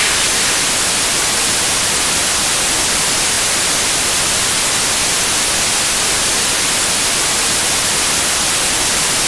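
Television static: a loud, even white-noise hiss with no tone or rhythm in it, cutting off suddenly at the end.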